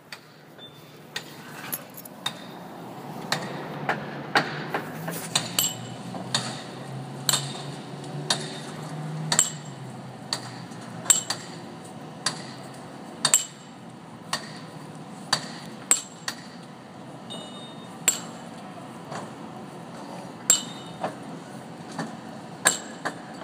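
Masons' hammers striking hand chisels on stone: sharp, ringing dings at irregular intervals, roughly one a second, over a low background rumble.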